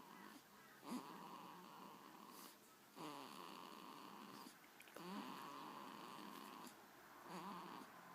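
A one-week-old baby breathing noisily in her sleep, making four drawn-out snore-like noises with a wavering pitch, one about every two seconds.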